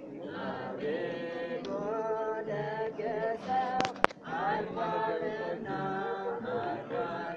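Unaccompanied voice singing a slow, chant-like hymn melody in phrases. A sharp click about four seconds in is the loudest moment.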